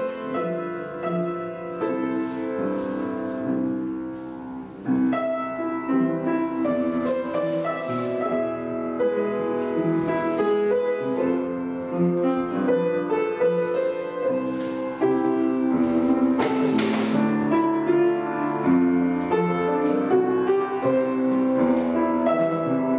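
Piano playing slow classical music, the accompaniment for a ballet barre exercise.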